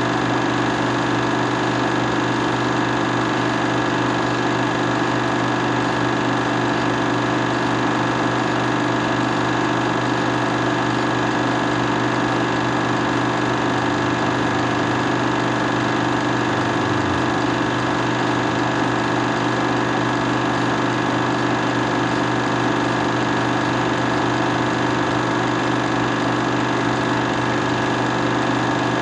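A loud, steady machine hum with a buzzing edge that never changes.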